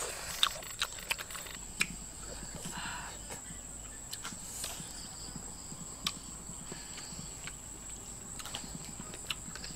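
A steady high-pitched insect trill, with scattered light clicks and knocks.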